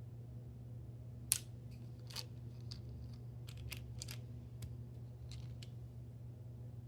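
A string of about a dozen light, sharp clicks and snips of small objects being handled, the first about a second in the loudest, over a low steady hum.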